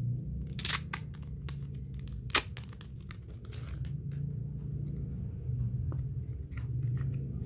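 Packaging of a sealed merch photo pack being torn open and crinkled by hand: a run of sharp rips and crackles, the loudest a little under a second in and again about two and a half seconds in.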